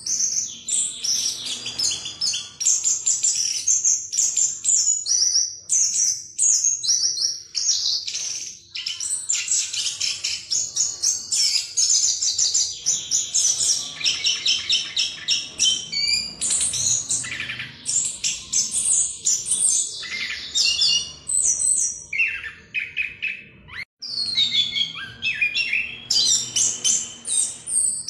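Chestnut-capped thrush (anis kembang) singing a long, rapid, rolling song of varied high notes with hardly a pause. This is the continuous 'ngerol' style that bird-keepers use as a lure to set other birds singing. It breaks off briefly twice, once about eight seconds in and once shortly before the end.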